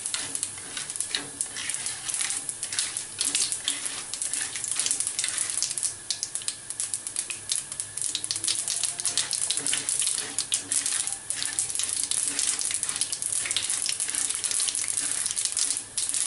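Chana dal and urad dal frying in hot oil with mustard seeds in a nonstick kadai: a steady sizzle thick with small crackling pops, as the dals fry toward crisp and reddish. A plastic spatula stirs through them now and then.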